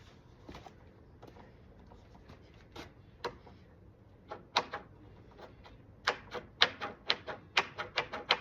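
A series of sharp, light clicks: a few scattered ones at first, then a quicker run of louder clicks, about three a second, in the last couple of seconds.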